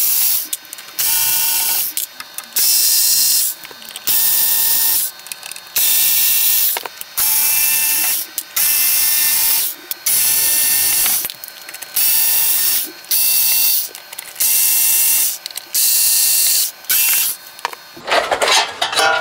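Workzone cordless electric screwdriver running in a dozen or so short bursts, each under a second with a steady whine, backing screws out of a mixing desk's metal side panels.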